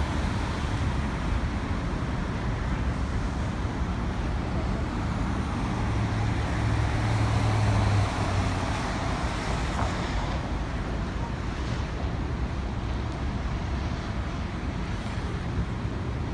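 Steady city street traffic rumble with wind buffeting the microphone; a low engine hum swells for a couple of seconds midway.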